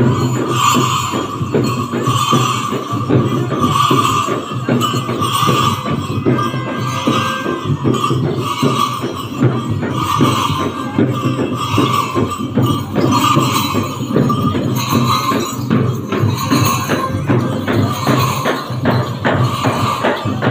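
Dhol drumming in a fast, steady rhythm, mixed with the jingling of large brass bells tied around the dancers' waists as they dance, over a sustained high tone.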